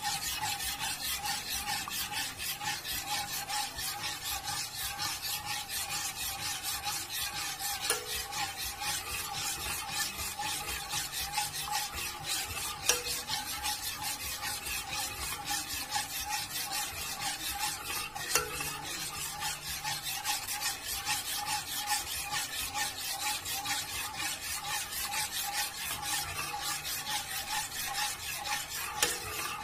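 Metal spoon scraping round the bottom of a saucepan in quick, continuous stirring strokes, keeping a lemon-and-orange cornstarch glaze moving over the heat as it thickens. A few louder knocks of spoon against the pan come through, over a faint steady tone.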